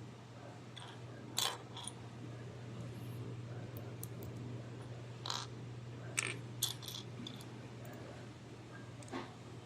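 Small plastic Lego minifigure pieces clicking and knocking together as they are handled and snapped into place: a handful of short, sharp clicks at irregular intervals, over a steady low hum.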